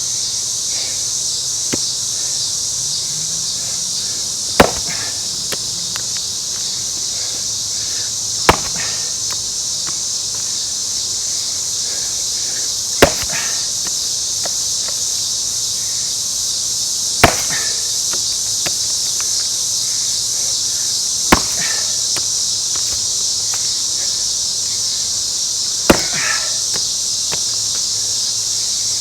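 Six sharp axe strikes into a Scots pine round, about one every four seconds, as the axe is driven in to split it. A steady chorus of insects runs underneath.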